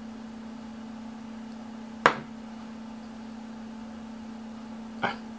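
Two sharp knocks, a loud one about two seconds in and a softer one about five seconds in, over a steady low hum.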